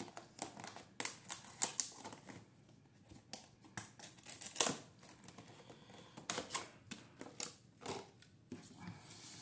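Paper and a plastic border punch being handled on a table: irregular sharp clicks and short paper rustles.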